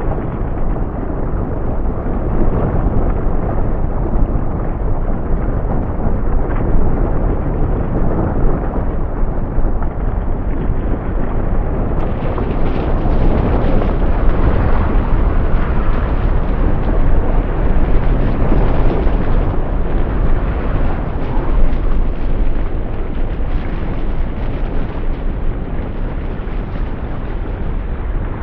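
A composed volcanic-eruption soundscape: a dense, continuous, deep rumble with rough crackle through it. About twelve seconds in it turns brighter and fuller.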